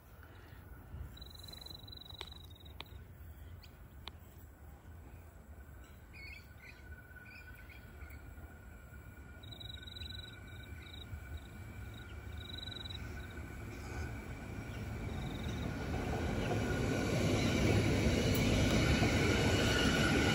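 CAF Urbos 100 light rail tram approaching along the track and running past, its noise growing steadily louder through the second half as it comes close. Birds chirp in the first half.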